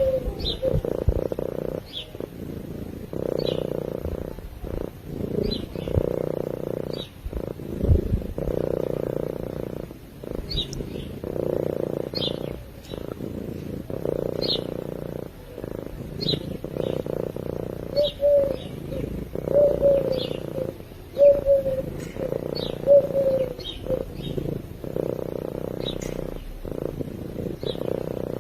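Domestic cat purring steadily while asleep, the purr broken by short gaps between breaths. Short high chirps repeat about once a second over the purr.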